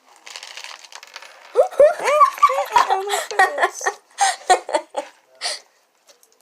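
A light rustling rattle, then a girl's high-pitched voice giggling and squealing in short wordless bursts.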